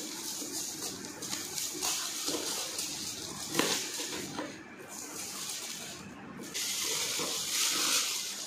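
Knives slitting the clear plastic shrink-wrap on a cardboard box, with the film crinkling and tearing as it is pulled off; the crinkling gets louder for the last two seconds or so.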